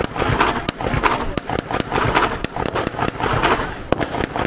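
Scattered gunshots, sharp single cracks at irregular intervals, several a second, over the steady sound of an engine running.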